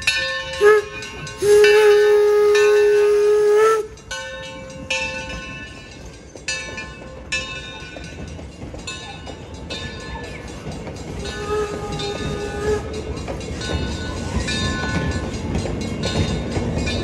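Steam whistle of the 0-6-4T Torch Lake locomotive: a short toot, then a steady blast of about two seconds. After it the train runs on, the wheel-and-rail rumble growing louder, with fainter whistle notes further on.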